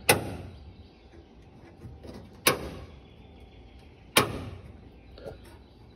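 Three sharp clicks about two seconds apart from the race car's cockpit controls as the freshly swapped engine is readied to crank. The engine is not yet running.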